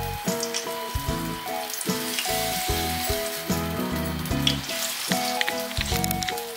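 Ginger-garlic paste sizzling and crackling as it hits hot oil in a non-stick pan, with light scraping and taps of a silicone spatula. Background music plays underneath.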